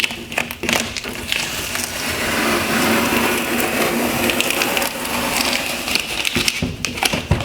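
Masking tape being peeled off a plastic headlight lens: a long, continuous crackling rip lasting several seconds, with short crackles and clicks before and after it.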